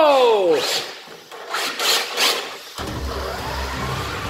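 Electric radio-controlled cars driving on a workshop floor: rough, rasping tyre scrubs, then a steady low motor hum from about three seconds in. A drawn-out falling "oh" cry fades out in the first half second.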